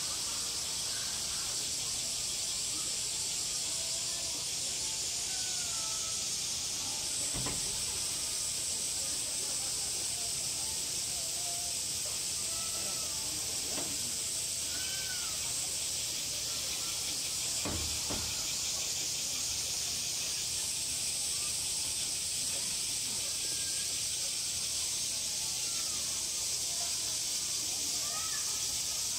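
Steady high-pitched insect chorus, with faint chirps from small birds and two soft thumps about seven and eighteen seconds in.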